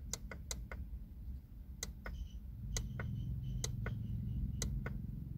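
Instrument-cluster knob being pressed again and again, a string of sharp plastic clicks about two a second, each press stepping the alarm sensitivity setting up one level. A low steady hum joins about halfway through.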